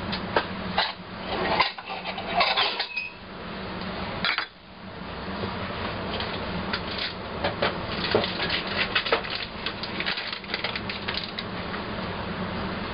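Kitchenware being handled: irregular clinks and knocks of cups, spoons and containers, over a steady low hum.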